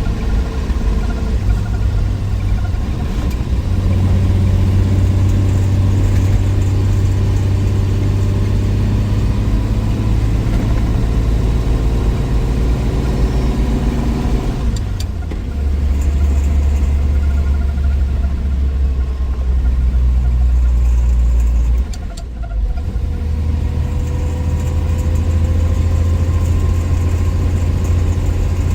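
1963 Willys Wagon's Tornado 230 overhead-cam inline-six running steadily on the road. The engine note steps lower about halfway through, and the sound dips briefly a few seconds later before settling again.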